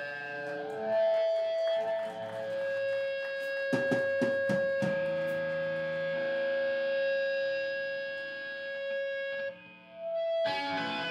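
Amplified electric guitar playing alone in a live rock set, letting single notes ring, with one note held for about seven seconds. A short run of drum hits comes about four seconds in, and the full band comes back in loudly near the end.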